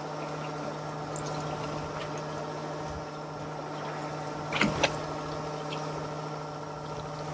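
A motor running with a steady, even hum. A few sharp knocks or clacks about four and a half seconds in.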